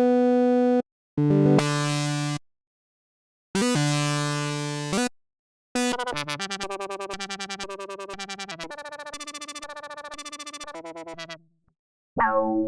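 Reason 12 Subtractor software synthesizer patches auditioned one after another: a short held note and two chords separated by silent gaps, then a fast pulsing sequence of about five notes a second lasting several seconds, and near the end a new sustained sound that opens with a falling sweep.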